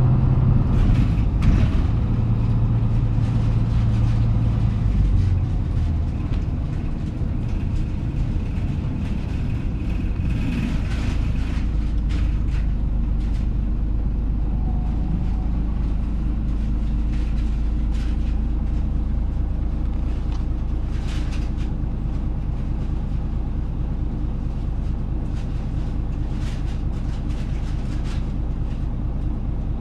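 Diesel engine of a KK-MJ26HF small route bus heard from inside the cabin while driving. The engine note drops about five seconds in, then settles to a steady low rumble, with occasional clicks and rattles from the bus body.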